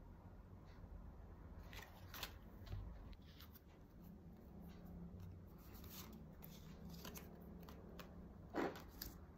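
Faint rustling and light ticks of paper cards being handled and shuffled on a wooden desk, with one louder brief scrape near the end.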